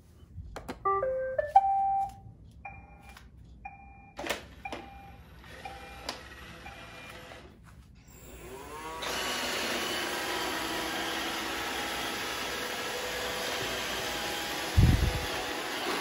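A few short electronic tones and clicks. Then, about eight seconds in, an iRobot Roomba 675 robot vacuum's motors whir up and run steadily as it starts cleaning. A short low thump comes near the end.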